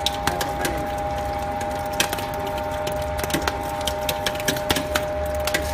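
Small single-screw oil press (YZS-150) running while pressing palm kernels: a steady hum with two high steady tones, and irregular sharp cracks and clicks, several a second, from the material being crushed in the screw barrel.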